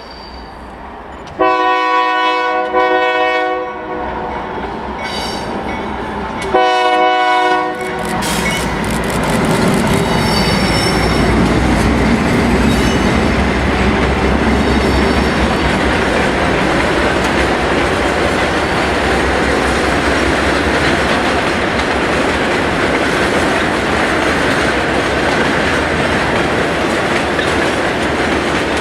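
Diesel locomotive horn sounding a chord in two blasts, the first about two seconds long and the second shorter, then a loaded taconite ore train passing close by: the locomotive running and a steady rumble of wheels on the rails.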